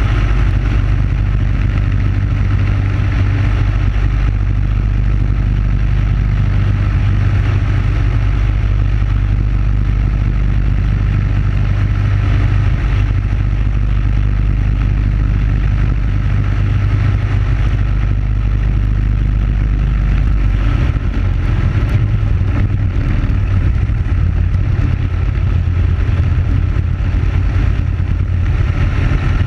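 Racing kart's Briggs & Stratton Animal single-cylinder four-stroke engine running hard at race speed, heard onboard together with rushing wind; the engine tone changes about two-thirds of the way through.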